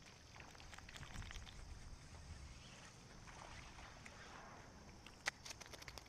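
Faint rustling and clicking of fishing rod and reel being handled as a hooked fish is hauled ashore. There is a sharp click about five seconds in, then a quick run of ticks, over a faint steady high insect drone.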